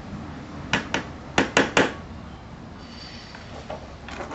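A scooper knocking sharply against a container while powdered drywall mud is scooped out: about five knocks within the first two seconds, then quieter.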